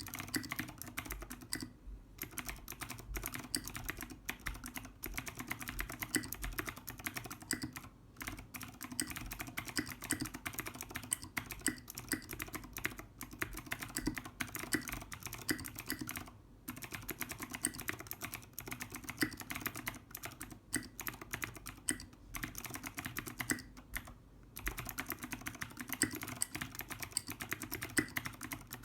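Fast, continuous typing on a mechanical keyboard with clicky Cherry MX Green switches and tall SA profile keycaps, a dense patter of key clicks broken by a few brief pauses.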